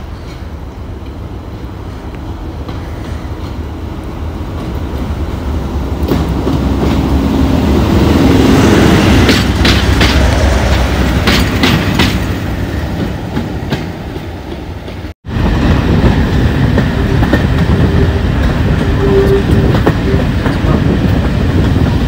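Class 37 diesel locomotive 37227's English Electric V12 engine growing louder as the locomotive comes up alongside, with a few metallic clanks. After a sudden cut about two-thirds of the way in, a diesel-hauled train running steadily with wheels clattering over the rail joints.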